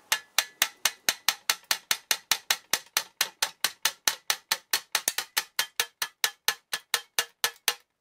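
Spot-welded thin sheet steel being flexed back and forth by hand, clicking sharply and evenly about five times a second, each click with a short metallic ring.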